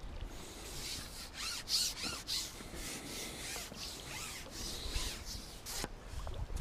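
Scratchy rubbing and handling noise, irregular, with a few light clicks, from a fishing pole being handled and shipped back while a hooked fish is played in.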